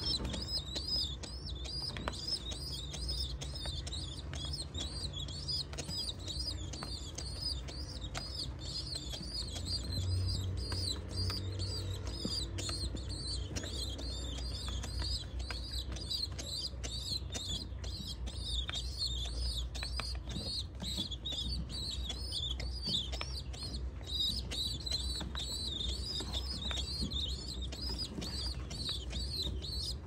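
Pigeon squabs begging while being fed: a rapid, continuous high-pitched peeping, with fluttering of the squabs' wings.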